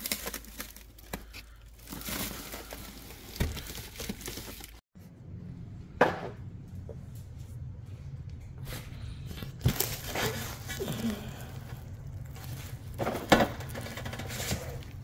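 Plastic wrapping crinkling and rustling as hands pull it back from a new wheel in its cardboard box. After a sudden cut about five seconds in, a low steady hum with a few sharp knocks takes over.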